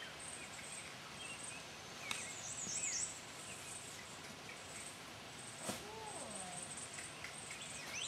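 Quiet outdoor ambience of small birds chirping, with short bursts of a high, thin insect trill. A brief wavering call sounds about six seconds in.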